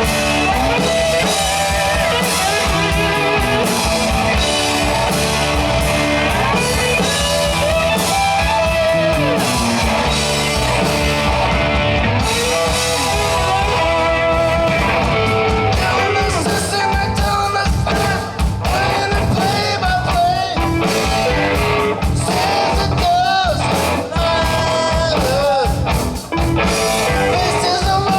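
Rock band playing: guitar and drums, with a voice singing over them, loudest in the second half.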